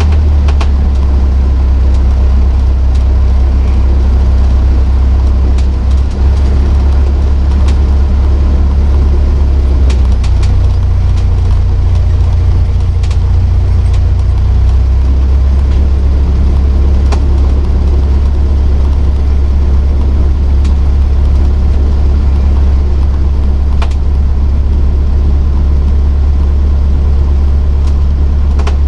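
Cessna 152's four-cylinder Lycoming engine and propeller running steadily at low taxi power, heard inside the cockpit as a loud low drone. Its pitch lifts slightly for a few seconds about ten seconds in.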